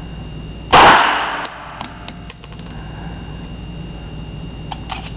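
A single shot from a Browning 9mm pistol, sharp and very loud, ringing off the walls of an indoor range for most of a second. A few faint clicks follow.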